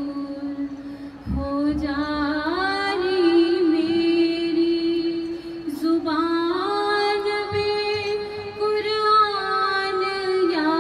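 A woman singing long, held notes with bending ornaments, starting a new phrase about a second in and again about six seconds in.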